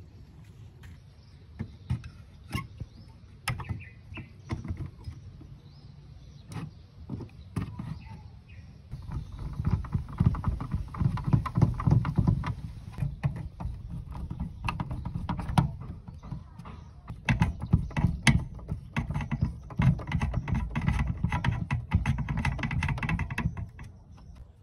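Scattered clicks and knocks as parts are handled on a plastic cassette-deck chassis. From about nine seconds in comes a hand screwdriver driving screws to fasten the amplifier circuit board into the plastic chassis: a dense, rapid grinding clatter in two long stretches.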